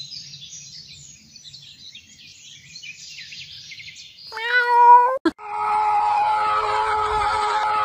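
Faint high bird-like chirps, then about four seconds in a loud cat meow lasting about a second. A sharp click follows, then a loud, steady, high wail held on one pitch.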